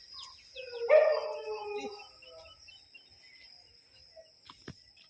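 A dog vocalizing once, a drawn-out call of about a second that starts about a second in, followed by a few fainter short sounds.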